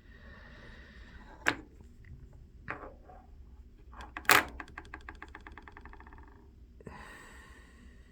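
Small objects being handled, most likely pocket knives: a sharp click, a couple of lighter knocks, then a louder knock about four seconds in, followed by a quick rattle of ticks lasting about two seconds.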